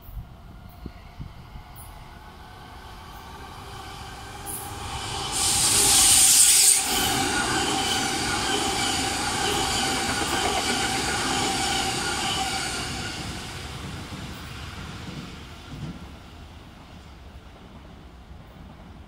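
Tokyo Metro 13000 series electric train passing close by at speed. The sound builds over a few seconds to a loud hiss as the front of the train goes past about five seconds in. The cars then go by with a steady whine of several high tones, which fades after about thirteen seconds, with a single thump near the end.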